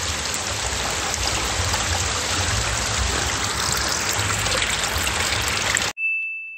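Steady rush of a small stream's running water, with low rumble, cutting off abruptly near the end. A brief steady high-pitched tone follows.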